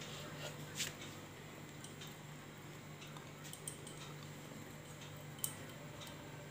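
A knife cutting through a rolled dough log and tapping the wooden board beneath: a few short clicks, the sharpest about a second in and near the end, over a steady low hum.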